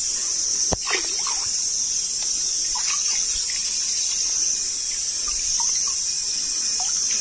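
Water trickling and dripping as a collapsible mesh fish trap is lifted out of a shallow stream, over a steady high hiss, with one sharp click about a second in.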